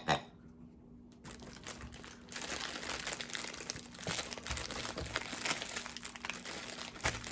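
Crinkly packaging being handled: a dense run of small crackles and rustles that starts about a second in, thickens around two and a half seconds and stops near the end.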